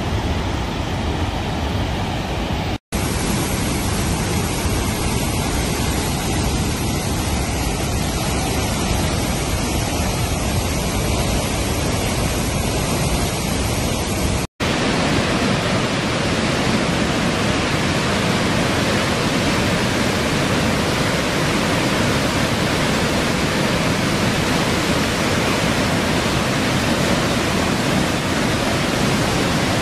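Steady roar of rushing white water at Murchison Falls on the Victoria Nile. The sound cuts out for an instant twice, about three and fifteen seconds in, where clips are spliced.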